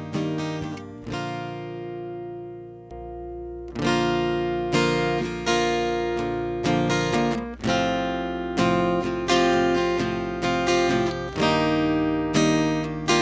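Acoustic guitar strumming chords, heard direct through a FET preamp pedal and mixer interface with no room sound. A chord rings out and fades about a second in; during that pause the preamp is switched on and a faint low hum comes in, and strummed chords resume about four seconds in.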